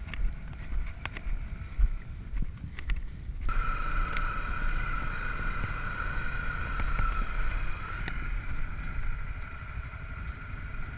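Off-road vehicle engine running on the move, with low rumble and wind buffeting on the microphone and a few sharp knocks. A steady high whine comes in about three and a half seconds in and holds.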